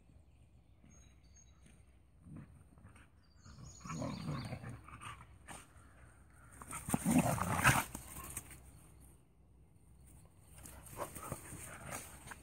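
Dogs in rough play, vocalising in short bursts: a first burst about four seconds in and the loudest about seven seconds in, with softer noises near the end.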